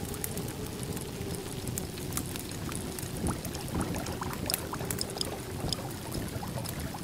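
Café ambience: a steady low background rumble with scattered light clinks of cups and dishes.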